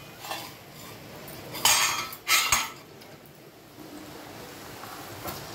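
Stainless steel plates and utensils clanking against each other: a few light clinks, then two sharp clanks about two seconds in.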